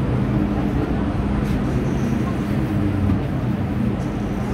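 Inside an MTR M-Train metro car moving along a station platform: steady running noise of steel wheels on rail, with a low, even motor hum.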